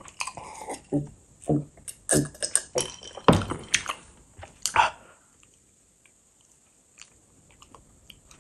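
Close-miked mouth sounds of eating and drinking: sips and gulps of water from a glass mixed with wet chewing and lip smacks, in quick short bursts that stop about five seconds in, leaving near silence.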